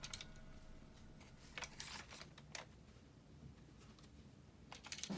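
Faint, sparse clicks and taps of a plastic Nerf dart blaster being handled, with near quiet between them.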